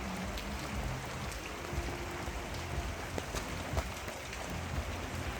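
Steady rain falling, with scattered sharp ticks of single drops striking hard surfaces and a low rumble underneath.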